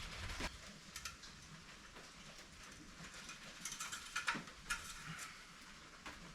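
Faint scattered clicks and light knocks of handling parts under the bonnet, a small cluster of them about four seconds in.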